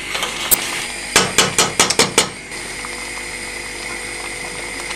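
A metal spoon knocking against a steel saucepan while stirring the tahini soup: a single click, then about six quick knocks in a row. After that the simmering soup gives a steady hiss.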